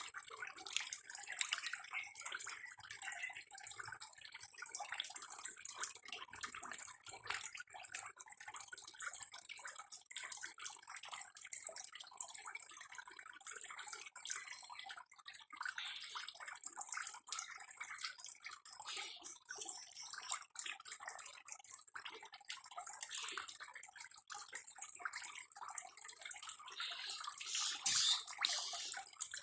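Water trickling and splashing steadily, full of small drip-like ticks, a little louder near the end.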